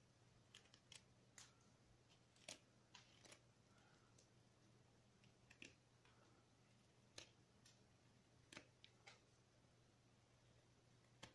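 Carving knife whittling a small wooden figure: faint, irregular clicks and short scrapes as the blade takes off small shavings, about a dozen cuts with uneven gaps.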